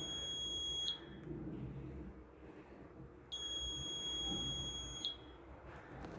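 Buzzer of a student-built smoke detector circuit sounding its alarm, which the circuit gives when smoke reaches its sensor. It sounds as long, high-pitched steady beeps: one ends about a second in, and another lasting about two seconds starts a little past the middle.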